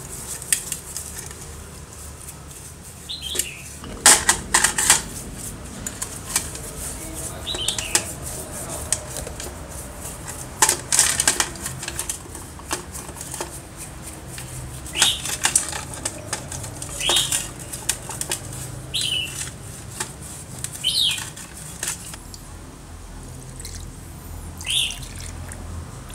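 Bristle brush scrubbing greasy air compressor pump parts in a stainless steel bowl of cleaning liquid: irregular scrubbing strokes with splashing, and metal parts knocking against the bowl.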